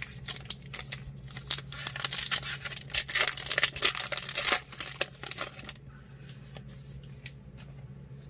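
A trading card pack wrapper crinkling and tearing open, loudest about three to four and a half seconds in, then lighter rustling as the cards are taken out and handled.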